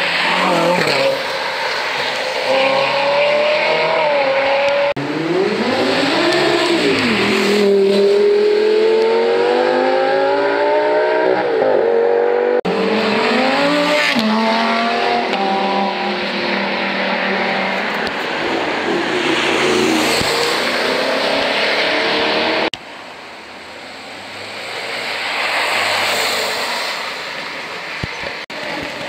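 Supercars, among them a Ferrari 458 and an Audi R8, accelerating hard past one after another in several short cuts. The engine pitch climbs and drops again and again as they rev and change gear, and near the end the sound dips, then swells as another car approaches.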